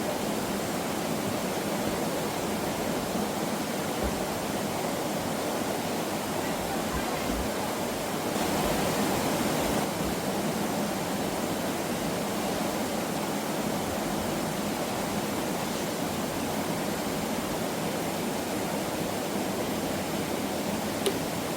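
Mountain valley stream water rushing steadily. It swells louder for a couple of seconds about a third of the way in, and a single sharp click comes near the end.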